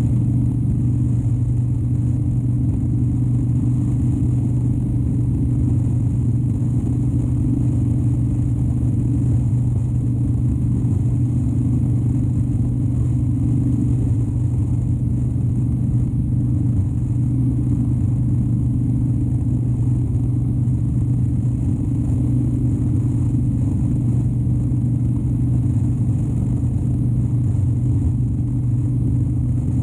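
2013 Harley-Davidson Dyna Wide Glide's 103-cubic-inch V-twin running at a steady cruise, with an even engine note that holds without revving up or down.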